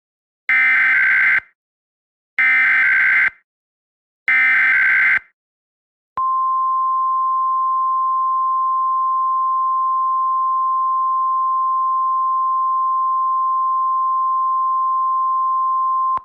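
Emergency Alert System SAME header: three bursts of warbling digital data tones, each about a second long and about two seconds apart. They are followed by the steady single-pitched National Weather Service (NOAA Weather Radio) attention tone, held for about ten seconds before a warning is read.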